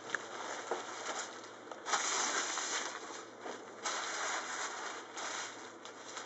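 Delta kite's fabric sail rustling and crinkling as it is rolled up by hand, in several uneven surges.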